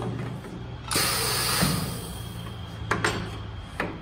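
Single-head PVC profile welding machine: a sudden hiss of compressed air about a second in that fades over about a second, then a few sharp clicks and knocks as the plastic profiles are set against the machine, over a low steady hum.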